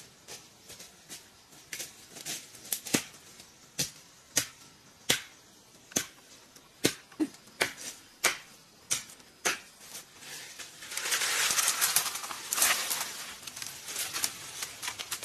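A hoe digging dirt ground: irregular sharp chops, one or two a second, with a few seconds of louder scraping about eleven seconds in.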